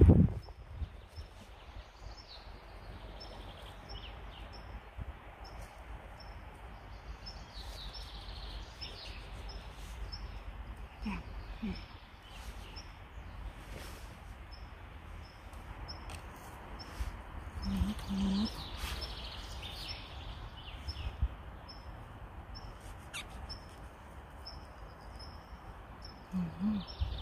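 Woodland ambience: a bird repeats a short high call evenly, a little under once a second, with a few other brief chirps, over a low rumble.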